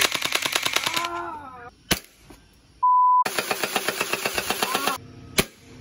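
Two rapid bursts of full-auto BB-gun fire, each ending in a man's short cry. A censor bleep sounds between the bursts, and there is a single sharp click after each.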